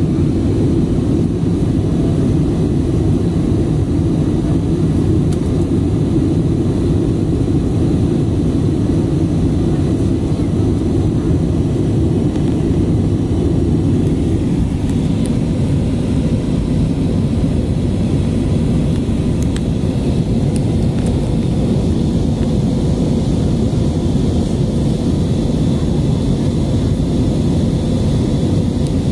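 Steady low rumble of an airliner's jet engines and rushing air, heard inside the passenger cabin during the climb after take-off.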